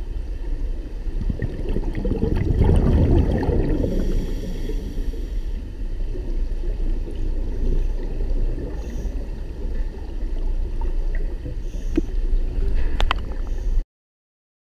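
Scuba breathing heard underwater: a steady low rush of exhaled bubbles from a regulator, loudest a couple of seconds in, with a few sharp clicks near the end before the sound cuts off suddenly.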